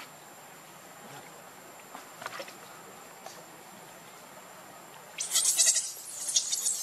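Baby pig-tailed macaque screaming: harsh, high squeals that break out suddenly about five seconds in and come in choppy bursts.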